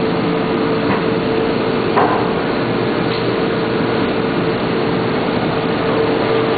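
CNC machine with a servo loading robot running: a steady machinery hum with one constant tone, and a sharp clack about two seconds in, with fainter clicks near one and three seconds.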